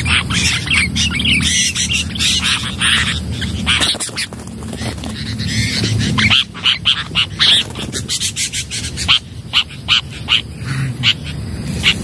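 Bulbuls calling in a rapid series of short, harsh notes, several a second, mixed with the wing flapping of a bulbul caught in a ground snare.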